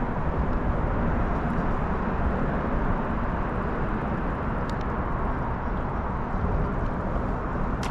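Steady rushing noise, likely wind and water around a fishing boat on the lake, with a faint click about five seconds in.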